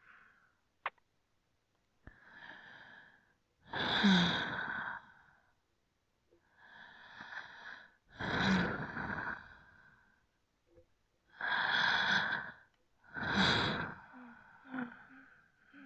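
A person breathing slowly and deeply, close to the microphone: about six long breaths, softer ones alternating with louder ones. The louder breaths carry a slight voiced sigh, and a few short, soft breathy sounds follow near the end.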